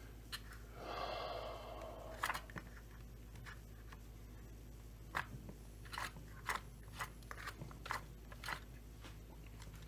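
Faint, scattered light clicks and taps of a Stihl 025 chainsaw's clutch shoes and springs being handled by fingers, after a brief rustle about a second in.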